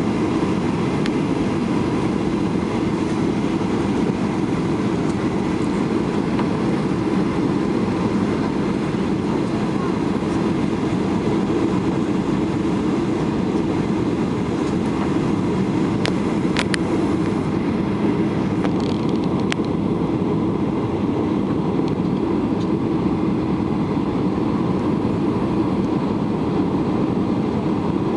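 Steady roar of an airliner's engines and rushing air heard inside the passenger cabin on the landing approach, with the landing gear lowered and the air brakes out. A few faint clicks come a little past the middle.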